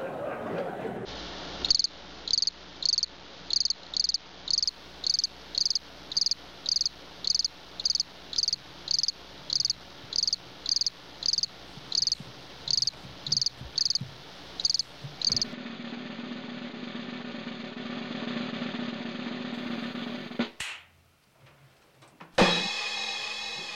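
Cricket chirping in an even rhythm, about two chirps a second, stopping about fifteen seconds in. A steady low hum follows, and near the end there is a sudden louder sound with several high tones.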